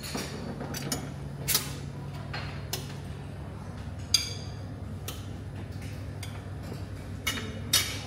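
Scattered metallic clinks and knocks of stainless steel chafing-dish lids and serving utensils, one ringing clink about four seconds in and two more near the end as a lid is taken hold of. A steady low hum runs underneath.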